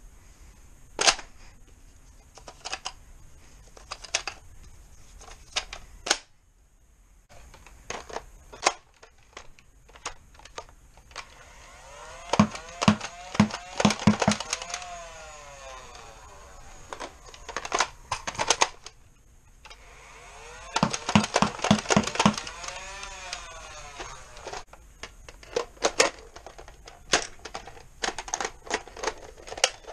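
Toy foam-dart blasters being handled and fired: scattered plastic clicks of priming and triggers. Twice, a Nerf Stryfe's battery-powered flywheel motor whines as it spins up, fires a quick string of darts and winds down.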